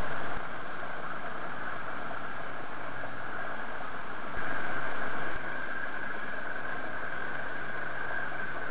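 A RIB's outboard engine running steadily at low, idling speed while the boat manoeuvres slowly, with a hiss of wind and water. The sound gets briefly louder for about a second, around four and a half seconds in.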